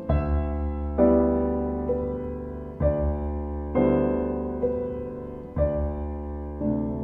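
Slow, gentle piano music: a new chord or note struck about once a second and left to ring and fade over a sustained low bass.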